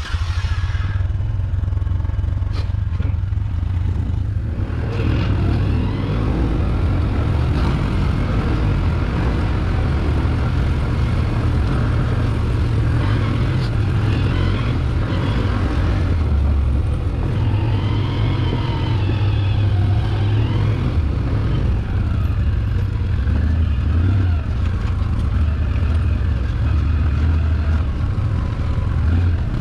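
Can-Am ATV running while being ridden: a loud, steady low rumble that starts abruptly.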